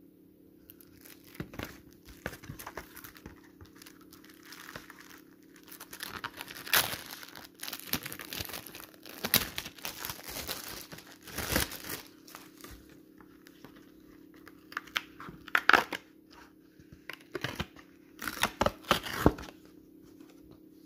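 Clear plastic shrink-wrap being torn and peeled off a cardboard chocolate box, crinkling and crackling in irregular bursts, loudest near the middle and again toward the end.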